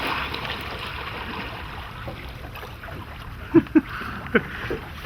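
Steady water and wind hiss around a small boat at anchor, with two short sharp knocks or clicks a little after three and a half seconds and a softer one soon after.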